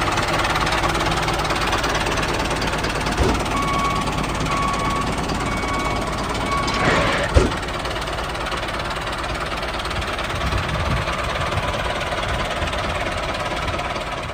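Small motor-driven machinery running steadily with a rattling, knocking drone. Two short thuds stand out, about three and seven seconds in.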